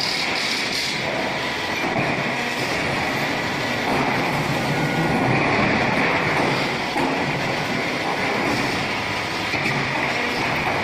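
QT12-15F automatic concrete block making machine running: a loud, steady mechanical din with a high squealing band, and a fast rattle in the first second.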